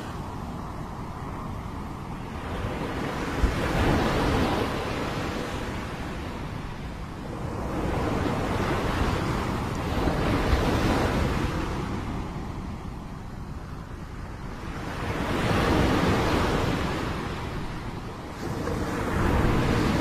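Small sea waves breaking and washing up a pebble beach, the surf swelling and fading again every four to six seconds.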